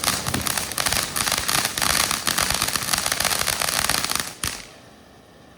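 Consumer firework crackling: a rapid, dense run of small pops over a hiss. It stops suddenly about four and a half seconds in, after a last sharp crack.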